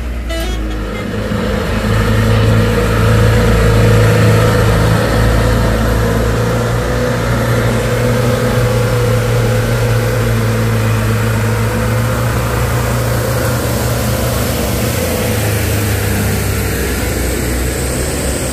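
Diesel truck engines running steadily under load as heavy trucks climb past at close range, one after another. The hum gets a little louder about two seconds in and holds.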